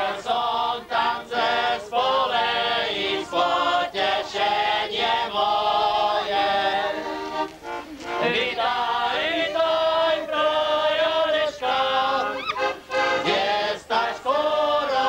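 A group of men singing a Slovak Easter folk song together, the voices rising and falling in short phrases with brief breaks between lines.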